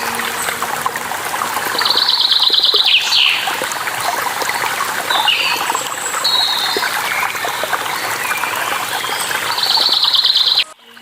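Waterfall water running steadily, with songbirds chirping over it, including two rapid trills. The whole sound cuts out abruptly near the end, then swells back in.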